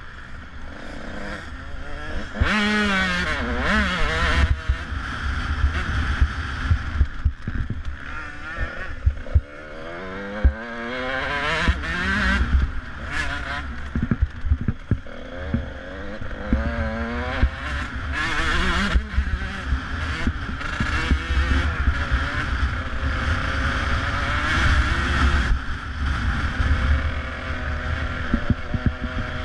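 KTM dirt bike engine racing on a dirt track, its revs rising and dropping again and again as the rider accelerates, shifts and backs off. Heavy wind rumble on the bike-mounted camera's microphone runs underneath, with a few sharp knocks from bumps.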